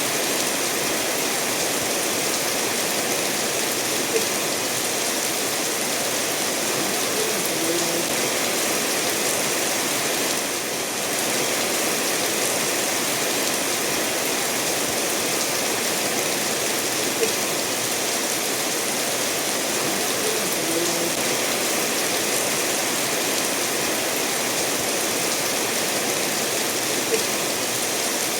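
Steady rain falling, mixed with a stream of water running over stones in an even rushing hiss. A few brief drips or taps stand out, about 4, 17 and 27 seconds in.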